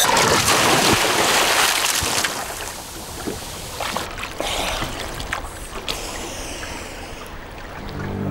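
A scuba diver splashing into the sea in a backward roll off the side of a small boat, followed by water sloshing and slapping around him at the surface.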